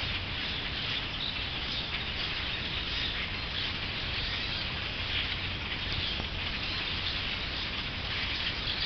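A large flock of birds chirping together in a dense, continuous din from the surrounding trees. The birds are agitated, which the recordist takes for a warning of danger.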